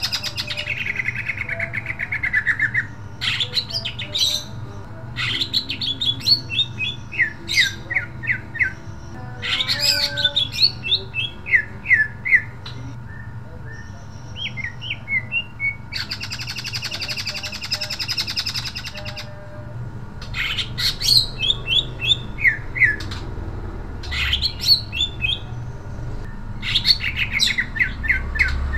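Cucak ijo (green leafbird) singing in sharp, loud runs of quick whistled notes, broken by harsh rasping calls: one at the start that falls in pitch and a longer one about halfway through.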